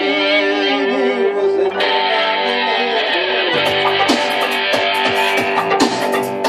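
Electro-techno band music with guitar over sustained held tones; about halfway through, a low bass line and sharp percussive hits come in.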